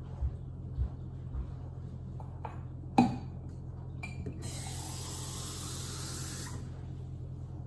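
Water running from a kitchen faucet for about two seconds, filling a glass, after a sharp knock about three seconds in.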